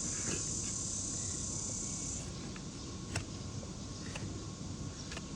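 An insect's steady high-pitched buzz that cuts off suddenly about two seconds in, followed by a few sharp clicks about a second apart.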